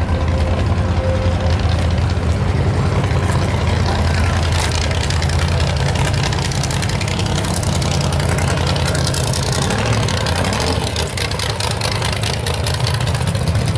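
Car engine idling with a low, steady rumble that eases a little in the middle and comes back strongly near the end.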